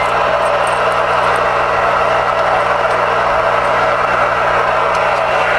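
Steady static hiss from a Galaxy DX-919 CB radio's speaker, receiving on an open channel with no signal, over a low electrical hum.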